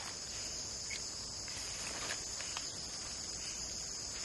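Steady, high-pitched drone of insects calling, with a few faint ticks.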